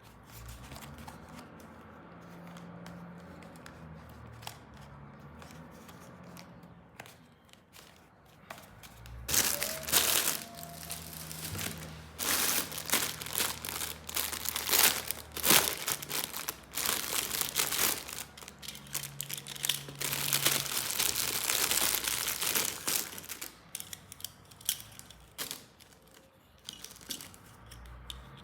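Plastic packaging being crinkled and torn open by hand. It starts faintly, then comes in loud, irregular rustling and crackling from about a third of the way in until near the end.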